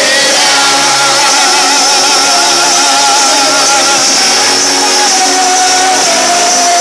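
A man singing through a microphone and loudspeaker, with a group of children and adults singing along. The lead voice wavers in pitch on long held notes.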